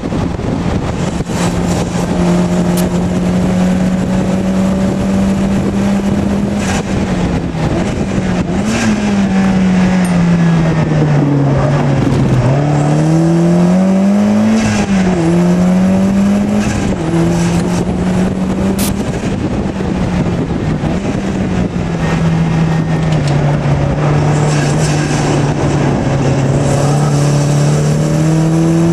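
Mazdaspeed MX-5's turbocharged 1.8-litre four-cylinder engine running hard on track, heard from the cockpit. The engine note holds steady for long stretches. Through the middle it drops and climbs in pitch several times as the car slows for and powers out of a run of corners.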